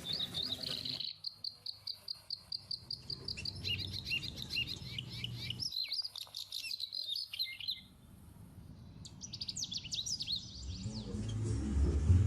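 Society finch (Bengalese finch) chicks giving rapid, high-pitched chirps, several a second, that fade out around the middle and start again briefly. A low rumble builds near the end.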